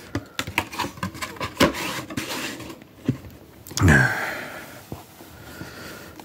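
Cardboard packaging of a Pokémon card booster bundle being handled and pried open, making a run of light clicks, taps and scrapes. About four seconds in there is a louder short breathy vocal sound.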